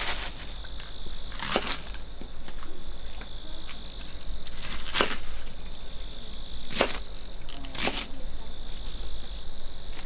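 Kitchen knife cutting through a head of cabbage onto a wooden cutting board: about five crisp, sudden cuts at uneven gaps of one to three seconds. Under them runs a steady high trill of insects.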